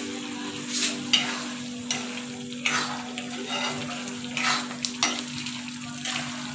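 Steel spoon stirring a thick potato curry in a wok over a gas flame: the curry sizzles, and the spoon scrapes against the pan about once a second. A steady low hum runs underneath.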